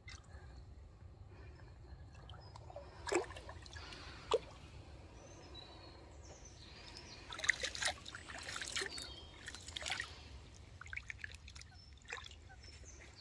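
Lake water splashing and trickling around a large carp held upright in the shallows as it is released, with a busier run of splashes in the middle.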